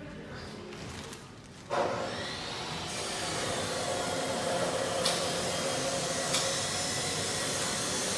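A motor-driven machine or power tool starts suddenly about two seconds in and runs with a steady whir. Two short sharp clicks sound over it.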